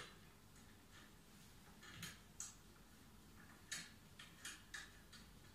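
A few faint, irregular clicks and taps from the hand-push seeder's metal handle and frame as the handle is handled and set in position, over near-silent room tone.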